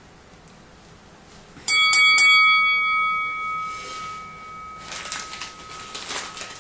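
A bell-like chime sound effect, three quick strikes about a second and a half in that ring on and fade away over a couple of seconds. Near the end, the empty clear plastic snack bag crinkles as it is handled.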